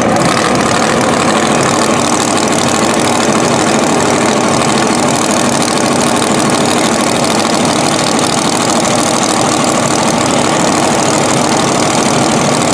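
Drag race car engine idling loudly and steadily, with no revving.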